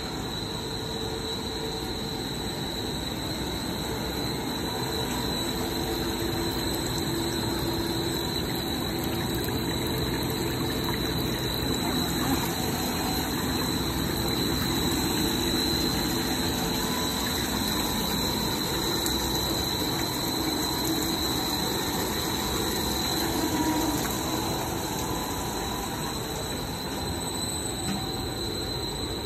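PVC fibre-braided hose production line running: a steady machinery noise with a continuous high-pitched whine over it.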